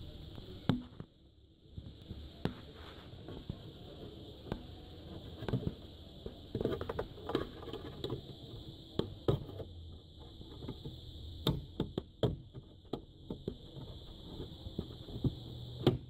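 Irregular light clicks and taps of a metal probe and fingers working at a flat ribbon-cable connector on an LCD TV main board, over a steady high hiss.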